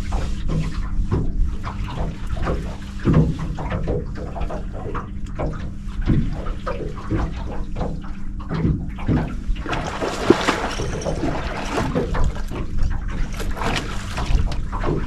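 Water splashing and sloshing, with irregular knocks and clicks over a steady low hum. About ten seconds in there is a louder burst of splashing.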